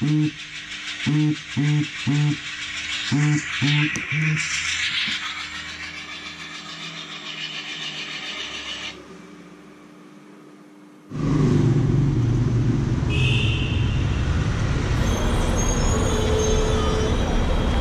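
An alarm beeping in quick groups of three, a group about every two seconds, stopping about four seconds in. From about eleven seconds in, loud street noise with traffic takes over.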